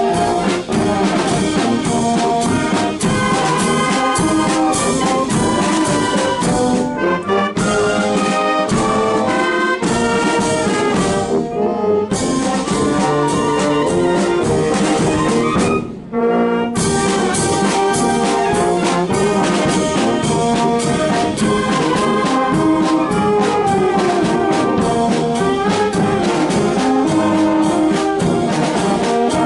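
Portuguese filarmónica wind band playing, with brass to the fore over a regular drum beat. The music breaks off briefly about sixteen seconds in, then carries on.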